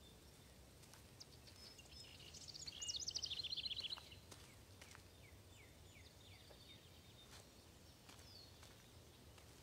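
Quiet outdoor ambience with a low steady rumble. A songbird sings a quick trilled phrase about three seconds in, followed by a few softer falling chirps.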